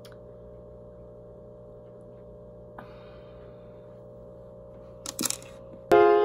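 Steady low electrical hum with no speech, with a few brief clicks about five seconds in. Music with held piano-like notes starts suddenly near the end.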